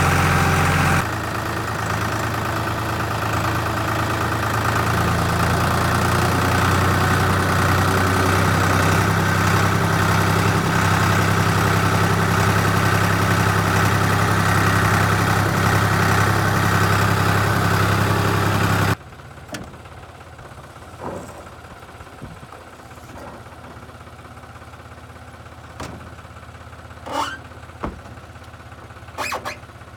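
Diesel engine of an LS XR3135 compact tractor running steadily, dropping slightly in level about a second in, then cutting off abruptly. After that come a few scattered clicks and short squeaks.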